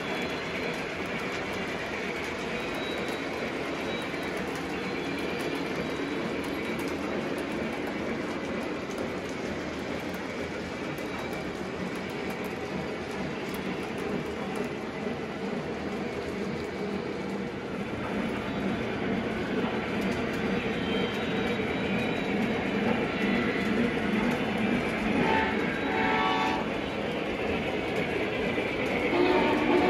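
Model train running along the track with a steady clickety-clack over the rail joints, growing a little louder as it comes closer. A horn sounds briefly twice near the end.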